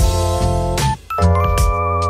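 Background music: held melodic notes over a regular beat, with a brief gap about a second in.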